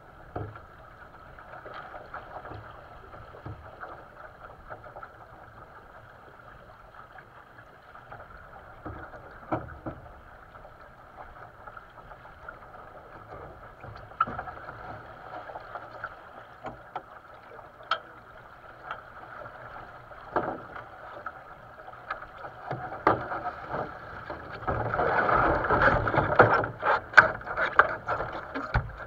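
Water rushing along a sailing dinghy's hull, with occasional knocks from the boat's fittings. Near the end the rushing grows louder and a quick run of knocks and rattles comes as the boat tacks and the helmsman shifts across.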